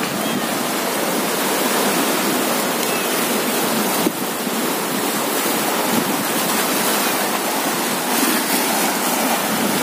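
Sea surf washing against the shore rocks: a steady, continuous rushing.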